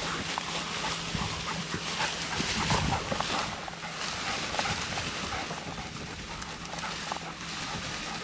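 Hunters and bird dogs moving through dry field cover: irregular rustling and crunching of steps through grass and brush.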